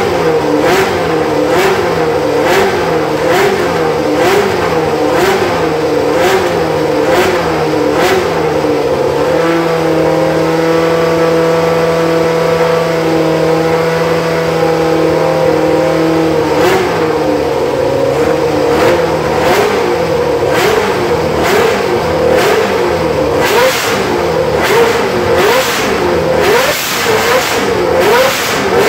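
Williams FW08's Ford Cosworth DFV V8 running with its throttle blipped over and over, the revs rising and falling a little more than once a second. About ten seconds in it is held at steady revs for roughly six seconds, then the blipping resumes, sharper near the end.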